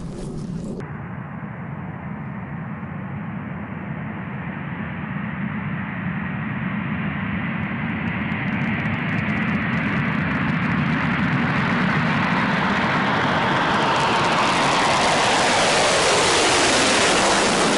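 Engines of a large military transport aircraft growing steadily louder as it approaches. Near the end a whine falls in pitch as the aircraft passes by.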